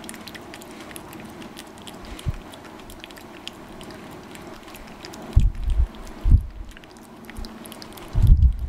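Cat licking food from a small hand-held dish: a run of small, quick, wet licking clicks. A few low thumps stand out, about five and a half, six and a half and eight seconds in.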